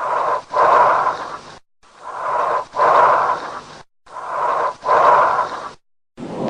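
Recorded lung sounds as heard through a stethoscope: three breaths of rushing air, each an inhale and an exhale, looped with short silences between them. Just before the end a different breath-sound recording begins.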